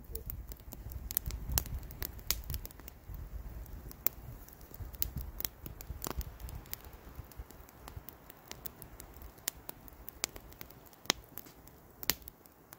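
Wood campfire crackling, with sharp pops scattered irregularly throughout, over a low rumble that fades after the first half.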